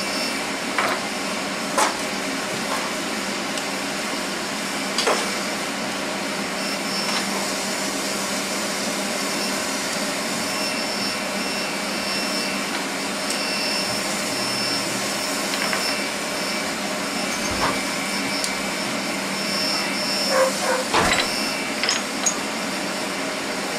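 A steady rushing hiss with faint whining tones, like a shop fan or machine running, with a few sharp metallic clicks and taps from parts being handled inside an open GM 14-bolt rear differential.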